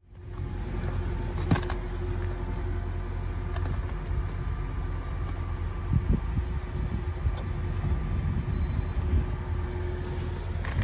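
Steady low rumble with a faint steady hum, broken by a few sharp clicks and knocks about one and a half seconds in, about six seconds in and near the end, as an OBD-II scanner's cable connector is handled and plugged into the diagnostic port under the dashboard.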